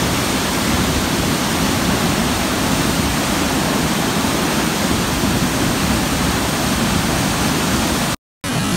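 Haew Narok waterfall: a steady, loud rush of falling water. The sound cuts out for a moment near the end, then resumes.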